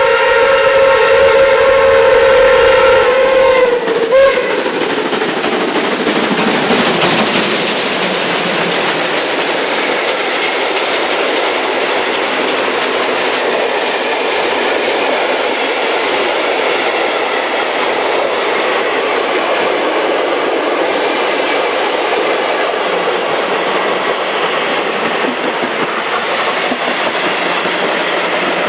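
A train's whistle gives a long, steady blast that cuts off about four seconds in; then the steam-hauled train passes and a long rake of passenger coaches rolls by with a steady rushing clatter.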